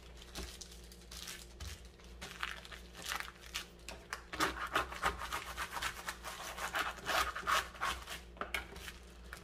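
Plastic zip-top bag crinkling and rubbing as soft butter inside is pressed and rolled into a log, the rustling growing louder about halfway through.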